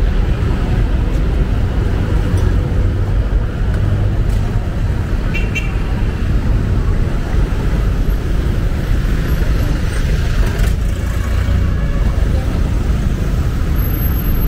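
Steady low rumble of street traffic, vehicle engines running close by, with a brief high tone a little over five seconds in.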